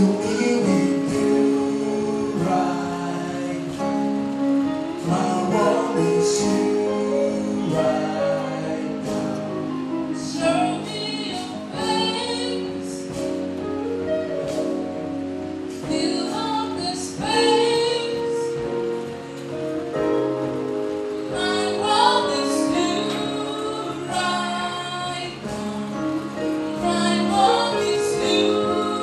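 Gospel choir singing a song rendition through microphones, with women's voices to the fore.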